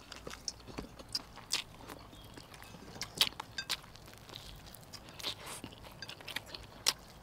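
Close mouth sounds of biting and chewing fried chicken: irregular wet clicks and small crunches.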